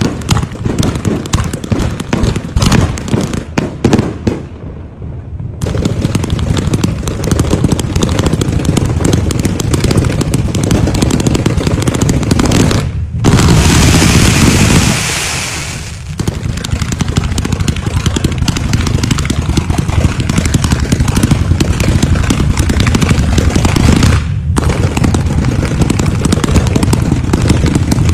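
Fireworks display: dense, continuous crackling and popping of aerial shells and firecrackers. About halfway through, a loud hissing rush as a fan of fireworks shoots up from the ground.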